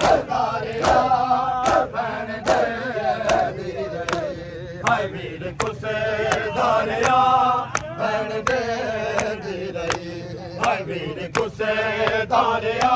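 Men chanting a Muharram nauha (lament) together. A sharp slap keeps time about every 0.8 seconds, in the manner of matam chest-beating.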